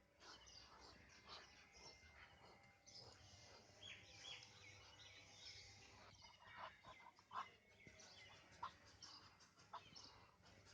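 Faint bird calls: many short chirps in quick succession, with a few sharper calls near the end.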